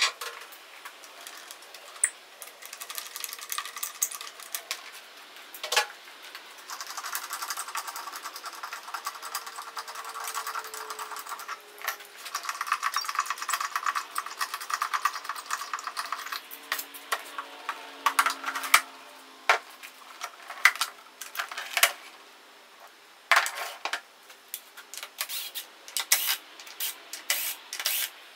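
Hand work on a wooden workpiece while fitting a switch: scattered sharp clicks and knocks of tools and small hardware, with a longer stretch of rubbing and scraping in the middle.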